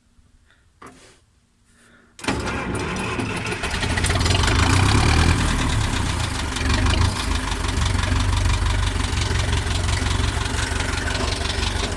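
Steyr 650 Plus tractor's four-cylinder diesel engine starting: a faint click about a second in, then it fires just after two seconds and keeps running steadily, a little louder from about four seconds on.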